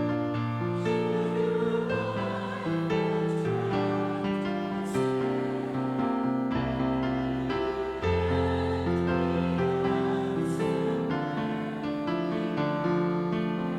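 Church keyboard playing the closing hymn music in slow, sustained chords that change every second or so.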